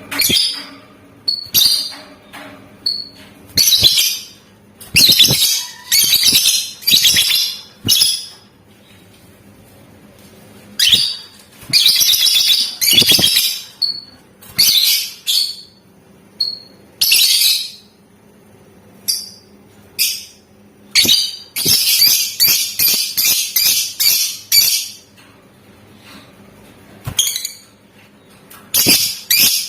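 Lovebird song in shrill bursts: long chattering trills lasting a second or two, single short chirps between them, and a fast run of rapid clicky notes near the middle of the second half.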